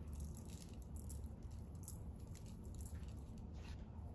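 Faint, light patter of sugar grains sprinkled over raw chicken wings in a stainless steel bowl, over a low steady hum.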